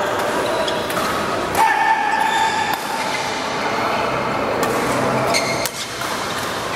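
Badminton play in a reverberant sports hall: sharp pops of rackets striking the shuttlecock, with short high calls from players, the clearest one about a second and a half in.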